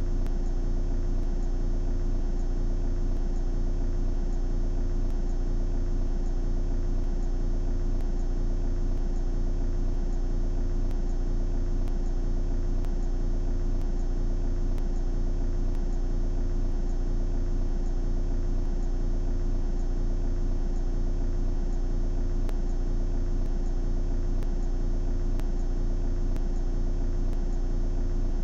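Steady low drone and hiss inside a stationary car, with a constant hum tone and a faint low pulsing about once a second.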